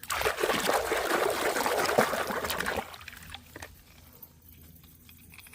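Water pouring for about three seconds, then cutting off abruptly.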